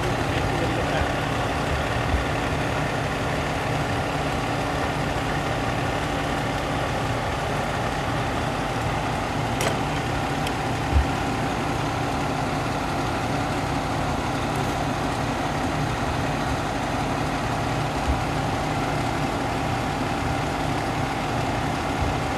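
Vehicle engine idling steadily, a constant hum, with a few faint clicks about ten seconds in.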